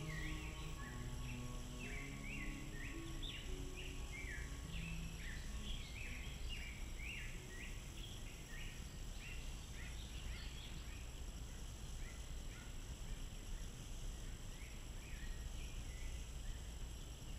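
A run of short high chirps, about two a second, thinning out near the end, over a low steady hum. Soft background music fades out in the first few seconds.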